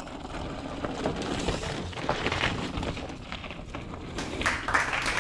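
Mountain bike rolling over rocky trail: tyres crunching on rock and gravel and the bike rattling, with a run of small knocks that gets louder from about four seconds in.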